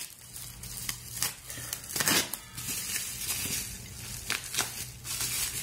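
Bubble-wrap packaging crinkling and rustling as it is slit with a utility knife and pulled open by hand, in irregular crackles that are loudest about two seconds in.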